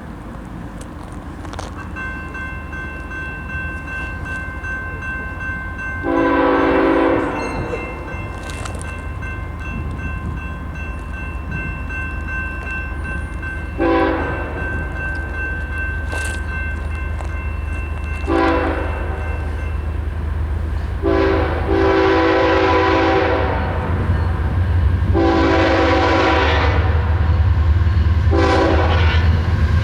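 Multi-chime air horn of a BNSF ES44AC diesel locomotive leading a coal train, sounded in six blasts of mixed length: long blasts about six seconds in and past the twenty-second mark, short ones in between. The locomotive's low diesel rumble grows steadily louder as the train approaches.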